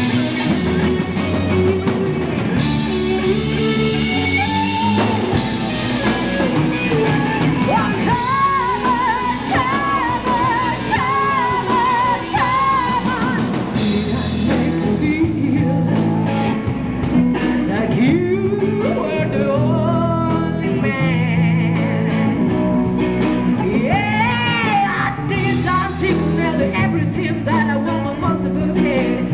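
Live rock band playing through a PA: women singing with vibrato over electric bass, electric guitar and a drum kit.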